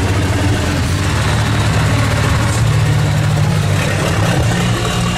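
Race truck's diesel engine running steadily at low revs as the truck rolls slowly past.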